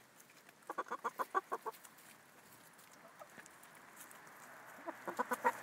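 Hens clucking as they forage: a quick run of short clucks about a second in, then another run near the end.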